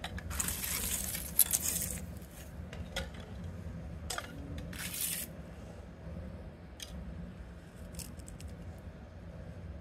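Thin circuit-board strips clattering as they are handled and dropped into a glass jar of acid-peroxide solution: a longer clatter in the first two seconds, two shorter ones around four and five seconds in, then a few light clicks.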